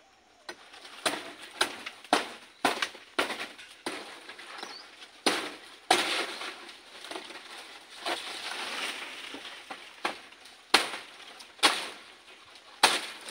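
A blade chopping through the stalk of a palmyra palm frond: about a dozen sharp, irregular blows, with the stiff fronds rustling between them.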